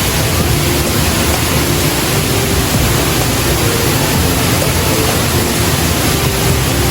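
Waterfall plunging close by: a loud, steady rush of falling water.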